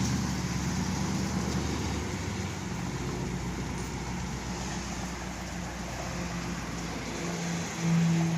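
Old Chevrolet car running with a steady low engine rumble. Music with a clear tune starts near the end.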